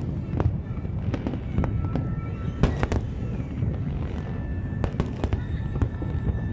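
Fireworks display: a steady run of bangs and crackling bursts over a continuous low rumble, with the sharpest bangs just under three seconds in and again about five seconds in.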